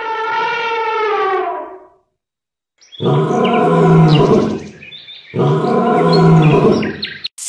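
An elephant trumpets once for about two seconds, its pitch dropping at the end. Then a lioness gives two long, low roars, one after the other.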